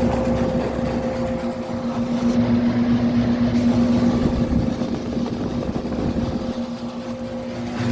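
Vintage York 'Tombstone' air-conditioner condensing unit running: a steady hum under the rattly noise of its fan and air rushing through the unit.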